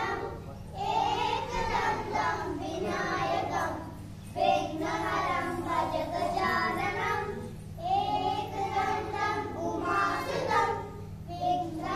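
A group of young children singing together in phrases a few seconds long, with short pauses for breath between them.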